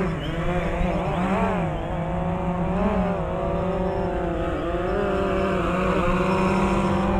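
Quadcopter drone's motors and propellers whirring steadily, their pitch wavering up and down as the throttle is adjusted.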